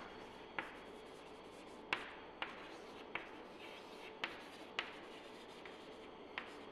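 Chalk writing on a blackboard: faint scratching strokes with about eight sharp, irregularly spaced taps as the chalk strikes the board.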